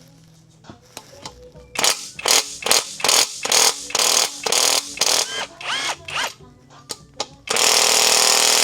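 Impact wrench working on engine bolts: a run of short trigger blips, some spinning up with a rising whine, then a steady two-second run of hammering near the end, the loudest part.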